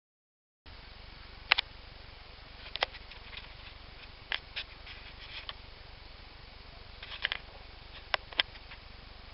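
Sharp clicks and taps, about a dozen and some in quick pairs, over a steady low hum.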